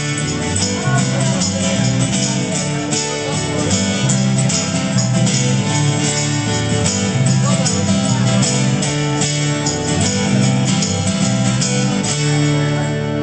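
Live band playing an instrumental passage: strummed guitars with a steady beat, settling onto one held chord near the end.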